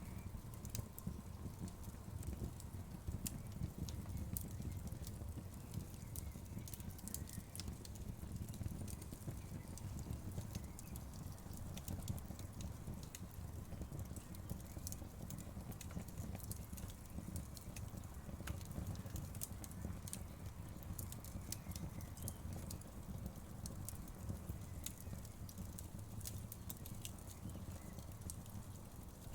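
Wood fire crackling: many quick, sharp pops and snaps scattered at irregular intervals over a steady low rumble.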